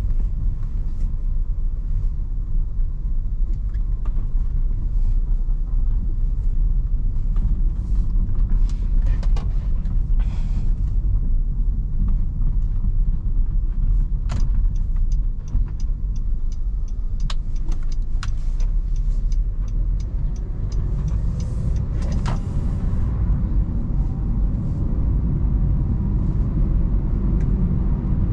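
In-cabin drive noise of a 2014 Honda Civic's 1.8 i-VTEC four-cylinder on the move: a steady low rumble of engine and road, with scattered light clicks and knocks. The rumble swells about twenty seconds in.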